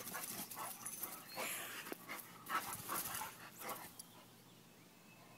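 Two dogs play-fighting: their breathing and scuffling come in irregular short bursts, which go quieter after about four seconds.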